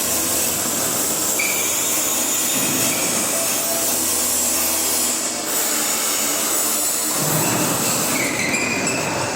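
MIG welding arc burning steadily with a continuous crackling sizzle.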